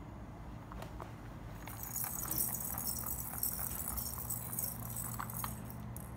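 From about two seconds in, a plastic ball rattling and jingling as it rolls around a cat's circular plastic track toy, batted along by a Bengal cat's paw, with light clicks and knocks against the track.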